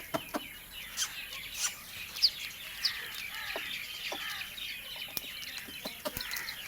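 Birds chirping busily, many short overlapping calls.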